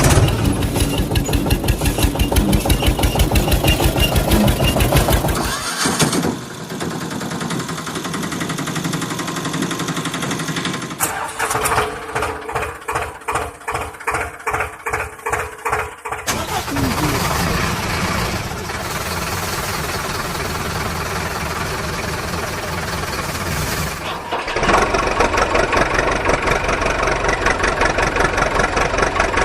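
Vehicle engine sounds in several abruptly cut sections: fast, even chugging at first, then a stretch that pulses about twice a second, a steadier hum, and loud chugging again near the end.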